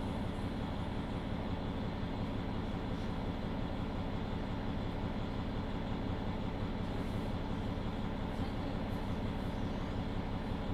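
Mercedes-Benz Citaro II city bus running steadily, its engine and running noise heard from inside the passenger cabin.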